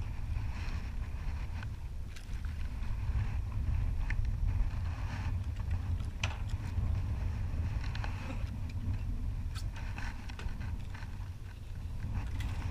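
Wind rumbling steadily on the microphone over the slap and wash of water around a small boat, with a few sharp clicks and knocks, about six, nine and ten seconds in.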